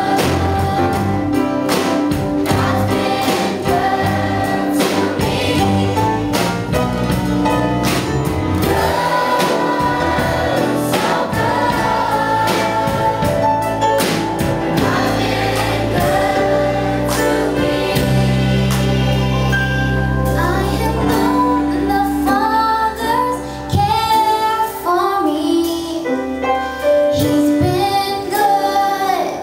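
Mixed youth church choir of children and young adults singing an upbeat gospel song, accompanied by electric guitar and a band with a steady beat. About two thirds of the way through a long low note is held for a few seconds before the singing carries on.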